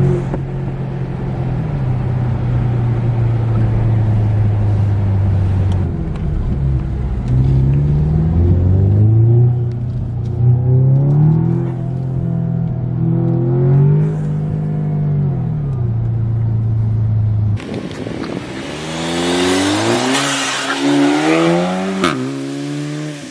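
Audi S3's turbocharged four-cylinder engine breathing through a carbon fiber air intake while driving, the engine note climbing and dropping several times as the car accelerates and shifts. About seventeen seconds in, the sound changes suddenly to a hissier, wind-blown engine note that keeps rising and falling.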